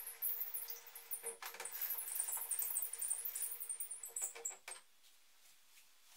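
The blade-raising handwheel crank of a homemade table saw being turned by hand, its mechanism giving faint squeaks and scratchy clicks as the blade rises; it stops about five seconds in.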